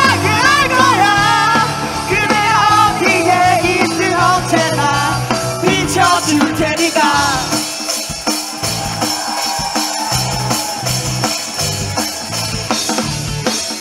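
Live rock band playing with electric guitar and bass: a singer's voice runs over the band for the first half, then stops about seven seconds in and the band plays on without vocals, a high percussion rattle keeping a steady beat.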